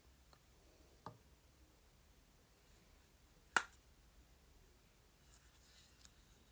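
Small hand mirror being handled: a soft tap about a second in, one sharp click a little past the middle, then light rustling.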